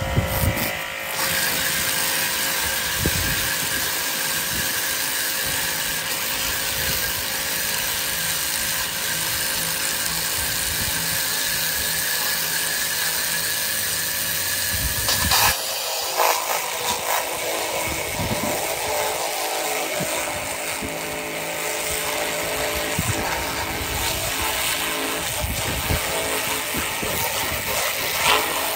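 High-pressure washer spraying a steady jet at a beer can: a loud, continuous hiss of the water jet over the steady whine of the pump. The sound changes sharply about halfway through.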